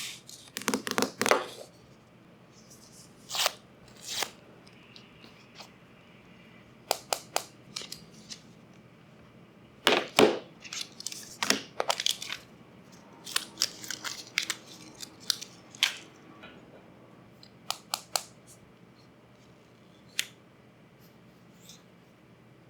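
iPhone boxes being unboxed: paper packaging tearing in short rips, crinkling, and clicks and taps as the box and phone are handled, scattered with quiet gaps between them.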